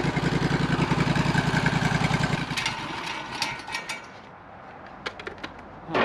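Portable bandsaw sawmill's engine idling with an even, rapid pulse, then dying away about two and a half seconds in. A few light mechanical clicks and knocks follow.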